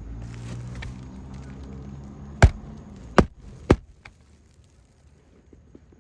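Three sharp hammer blows about half a second apart, the first the loudest, typical of nailing during a roof shingle repair. A low steady hum sounds under the first half and stops at the first blow.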